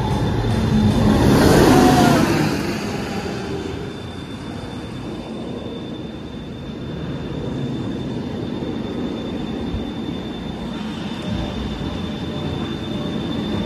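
Top Thrill 2 launched roller coaster train running on its track: a rush of wheel noise and rumble that swells to a peak about two seconds in and fades, then a steadier, lower rumble. A thin steady high whine runs underneath.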